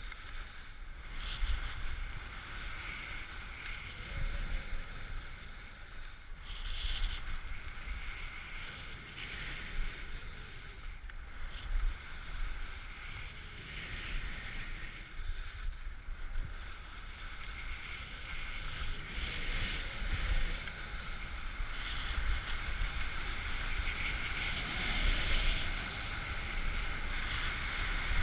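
Skis running on firm, slightly crusty groomed snow: a steady scraping hiss that swells and fades every couple of seconds as the skier turns. Wind buffets the microphone of a body-mounted action camera throughout.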